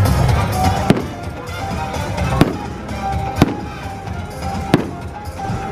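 Fireworks going off in four sharp bangs, a second or so apart, over music playing throughout.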